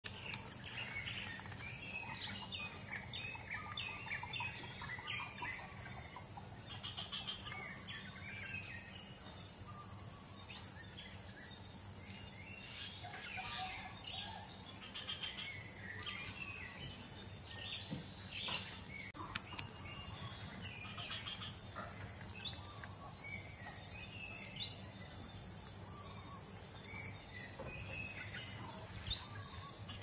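Forest ambience: a steady high-pitched insect drone with a thinner steady tone just below it, and many short bird chirps and calls scattered throughout.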